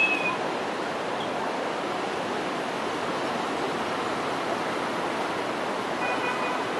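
Steady rushing outdoor noise, an even hiss with no clear source. About six seconds in, a few faint, short, high chirps.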